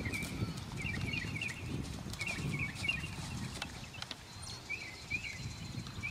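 A dressage horse moving on the sand arena, its hoofbeats soft and muffled under a low uneven rumble, while a songbird chirps in short bursts of quick notes four or five times.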